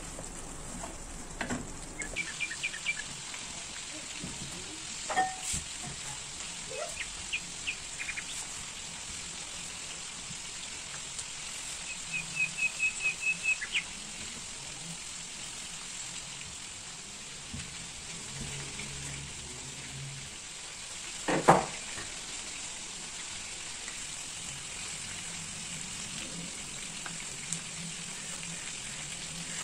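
Chicken pieces and carrot strips frying in a pan: a steady sizzle, with a spatula stirring and scraping. Two short runs of quick high clicks, and one loud sharp knock about two-thirds of the way through.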